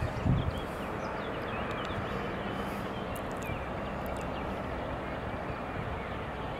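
Steady outdoor background noise with faint bird chirps over it, and a brief gust of wind on the microphone at the very start.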